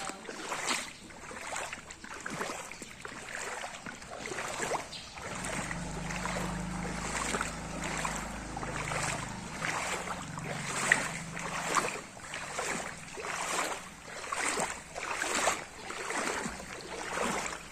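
Rhythmic splashing of floodwater, one stroke a little under every second. A low hum runs underneath through the middle.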